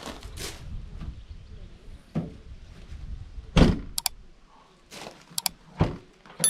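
A few separate knocks and thumps, the loudest a little past the middle, with two short sharp double clicks, and a ringing chime of several tones starting right at the end.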